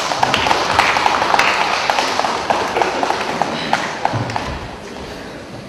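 Scattered applause from a small crowd of spectators, with sharp individual claps over a general clatter that slowly fades.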